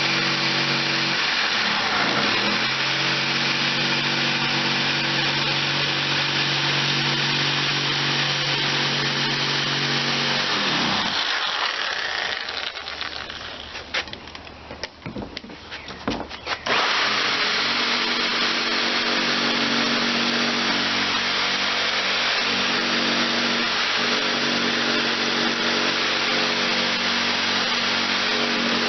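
An electric power tool running steadily, its pitch sagging briefly twice. It stops for about five seconds midway, with a few clicks, then runs again.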